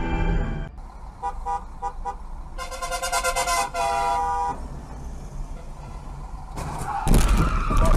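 Car horn honking in traffic: a couple of short toots about a second in, then a long blast of about two seconds. Near the end there is a loud, sudden noisy burst.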